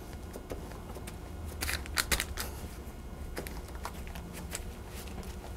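Hands pressing down on layered, buttered phyllo dough sheets and the parchment paper lining the pan: faint, scattered crinkles and rustles, with a few sharper clicks about two seconds in.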